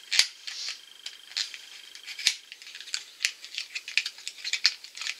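Hands handling a nail polish bottle and its packaging: a string of irregular small clicks, taps and crinkles.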